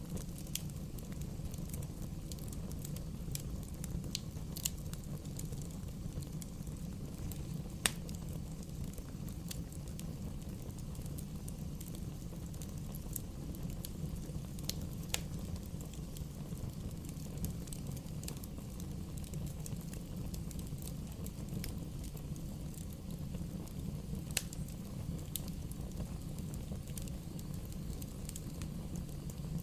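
Wood bonfire burning: irregular sharp crackles and pops, one louder snap about eight seconds in, over a steady low rumble.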